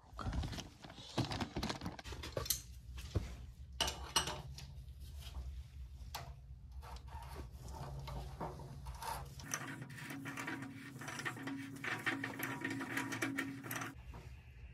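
Handling noises: a series of clicks and knocks over a steady low hum, with a faint steady tone and hiss joining about ten seconds in.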